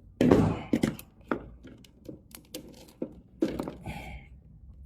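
Handling noise from electrical wiring and tools: a run of irregular knocks and clicks, the loudest about a third of a second in, with a short rustle near the end.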